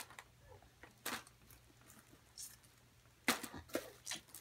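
Light clicks and knocks of toys, sticker sheets and a clear plastic egg's halves being handled, with a sharper knock about a second in and a cluster of knocks near the end.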